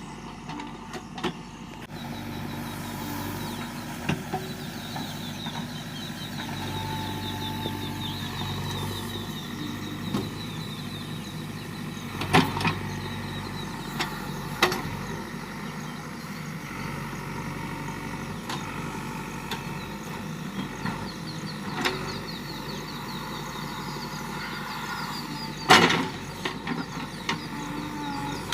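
JCB backhoe loader's engine running steadily while it works, with scattered sharp metallic clunks and knocks from the bucket and arm. The two loudest knocks come about 12 seconds and 26 seconds in.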